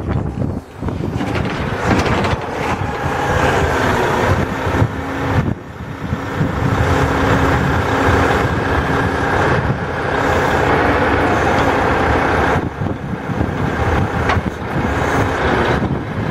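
Diesel engine of a Mack Granite log truck running to drive the hydraulics of its truck-mounted log loader while the boom and grapple are worked. A steady hum holds from about five seconds in until about twelve seconds in.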